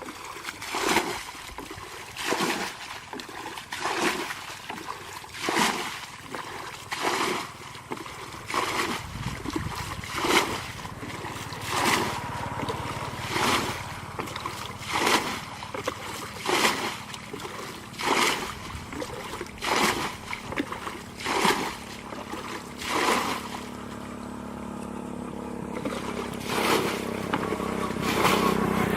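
Water splashing in a steady rhythm, one splash about every one and a half seconds. In the last few seconds a motor's steady hum comes in and grows louder.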